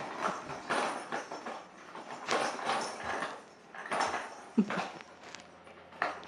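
Quaker parrot knocking, pecking and scratching at an object it is trying to open, in irregular short scrapes and knocks.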